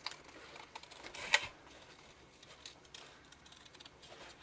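Scissors snipping through paper in a run of short cuts, with one louder snip about a second and a half in.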